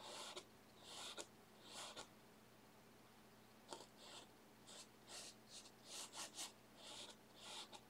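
Paintbrush scrubbing oil paint onto textured canvas: about a dozen short, faint scratchy strokes at an uneven pace, with a pause of a second or so partway through.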